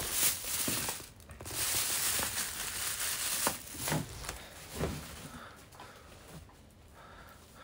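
Rustling and crinkling handling noise with a few light knocks, loudest in the first half and dying down after about four seconds.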